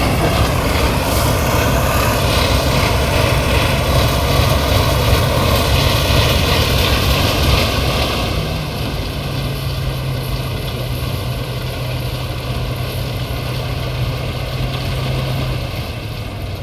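Truck-mounted rice thresher running steadily under load, engine hum and threshing drum noise together; the noise drops somewhat about halfway through. The uploader says the machine sounds as if it is breaking down, though it keeps going.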